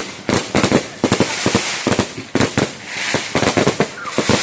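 Fireworks going off in a rapid barrage: many sharp bangs close together, several a second, with crackling between them.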